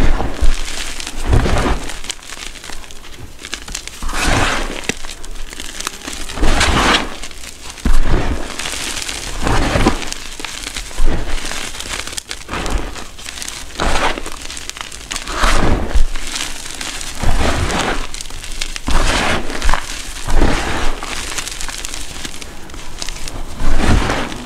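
Hands squeezing and crumbling handfuls of crushed gym chalk powder mixed with pigment powder. Each squeeze is a short gritty burst, one every second or two, some with a soft low thud.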